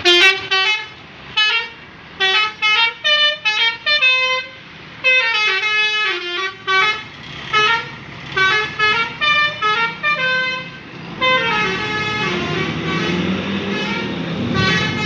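A multi-tone musical air horn of the Indonesian 'telolet' kind, on a passing bus or truck, playing a string of short toots and quick tune-like runs of notes that step up and down. A longer run of notes near the end is heard over the rising rumble of the vehicle's engine.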